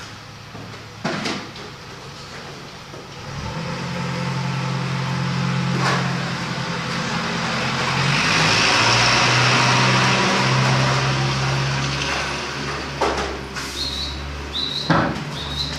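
A motor vehicle's engine hum, stepping up and down in pitch, with a rush of noise that swells and fades as it passes, and a few sharp clicks.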